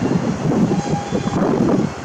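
A train of ballast hopper wagons rolling past, heavily overlaid by wind buffeting the microphone.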